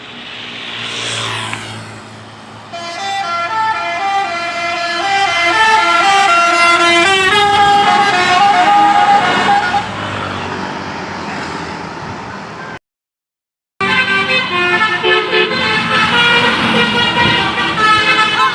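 A bus's telolet basuri multi-tone musical horn plays a tune of stepped, held notes, after a vehicle's engine and road noise swells past at the start. The sound cuts out completely for about a second near two-thirds through, then the horn tune carries on.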